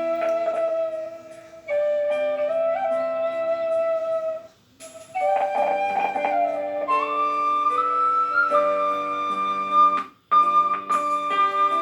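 Thai khlui flute playing a slow song melody in long held notes over a plucked-string accompaniment, the phrases broken by two short pauses.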